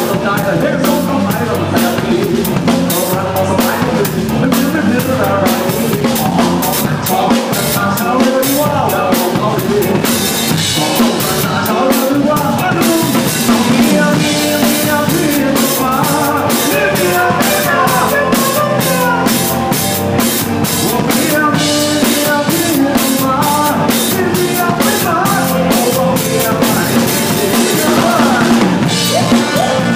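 Live band playing with the drum kit to the fore: a steady beat of bass drum, snare and cymbals over pitched instruments, loud throughout.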